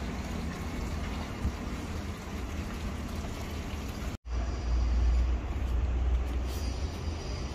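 Steady outdoor background noise with a deep rumble underneath. The sound drops out abruptly for a split second about four seconds in, and the rumble is louder for about a second after that.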